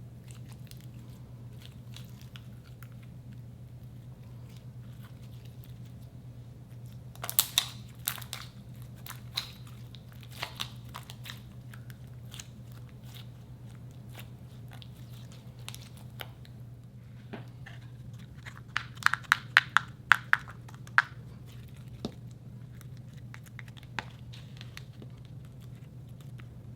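Slime being pressed and squished by hand, giving off scattered sharp clicks and pops, with a dense flurry about seven seconds in and another around nineteen to twenty-one seconds. A steady low hum runs underneath.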